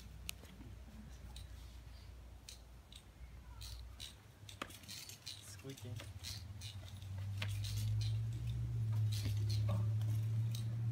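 Light scattered clicks and rustles of a slackline being walked and bounced on during tricks. A low steady rumble grows louder about seven seconds in.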